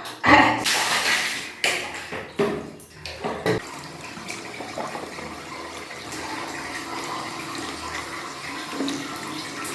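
Water splashing in several irregular gushes for about three seconds, then settling into a steady rush of running water.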